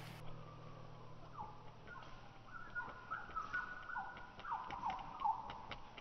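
Birds singing: short whistled notes that step and slide downward, repeated over and over. Faint quick taps join near the end, from a dog running on the tarmac path towards the microphone.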